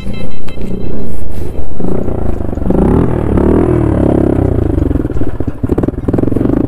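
Motorcycle engine running, with a rise and fall in revs around the middle; the first second or so has loud uneven bursts.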